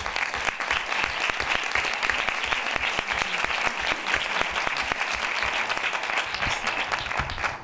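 Audience applauding: steady clapping that starts abruptly.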